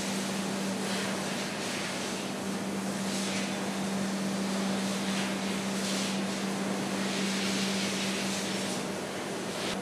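Foundry casting machinery running: a steady hum with a constant low tone and a broad hiss that swells a few times. The low tone drops out near the end.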